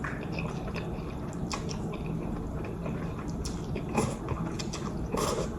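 Close-miked eating sounds of ramen noodles being chewed, with scattered small wet clicks and smacks.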